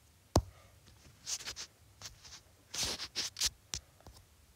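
A sharp tap, then two clusters of short, scratchy brushing sounds: a fingertip tapping and swiping across a tablet's touchscreen to scroll.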